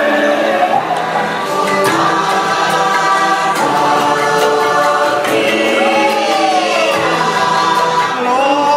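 Music with a choir singing, the voices held and gliding in pitch.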